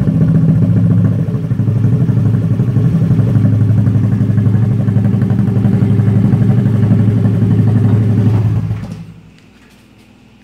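Honda Dio scooter's single-cylinder engine running steadily through an Austin AR aftermarket silencer, then cutting off about nine seconds in, leaving only a faint hum.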